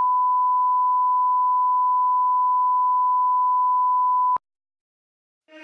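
Colour-bar test-tone beep: one steady, unwavering pitch that cuts off sharply about four seconds in. Brief silence follows, and music starts right at the end.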